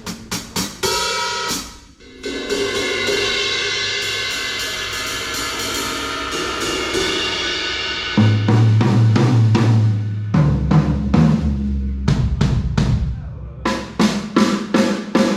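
DW Collectors maple drum kit with Zildjian K cymbals being played: a few quick hits, then a long ringing cymbal wash lasting several seconds. After that come repeated tom strokes that drop in pitch, and a flurry of drum hits near the end.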